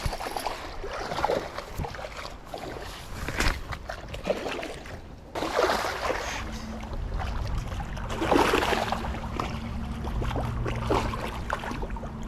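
A hooked smallmouth bass splashing and thrashing in shallow water while being fought to the bank, with line and tackle handling noise; irregular splashes, the biggest about six and eight seconds in.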